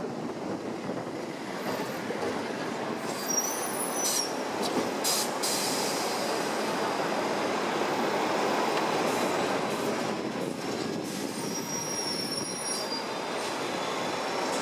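Hong Kong double-decker tram running along its street tracks, heard from the upper deck: a steady rumble and rattle of the car on the rails. Brief high wheel squeals come about three seconds in and again about twelve seconds in, with a few sharp clicks around four to five seconds in.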